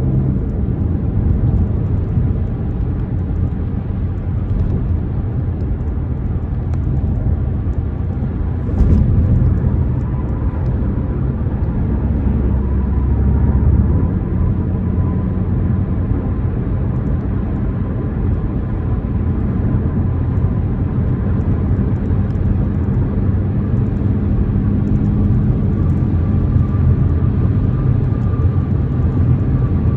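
2024 BMW M4 Competition's twin-turbo straight-six running under way, with steady engine and road rumble. A short knock about nine seconds in.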